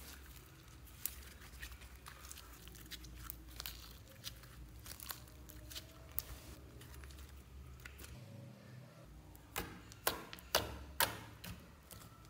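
Slime being squeezed, kneaded and stretched by hand, giving a run of sticky crackles and small popping clicks as trapped air is squeezed out, with a few louder pops close together about ten seconds in.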